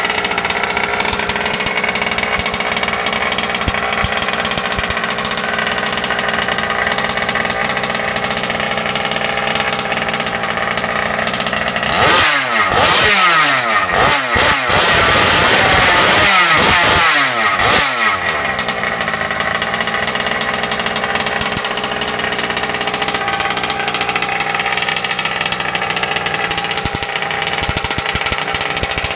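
Small two-stroke gas engine of a modded 1/5-scale HPI Baja 5T RC truck idling steadily. About twelve seconds in it is revved hard for roughly six seconds, in several blips whose pitch falls back after each one, before it settles to idle again.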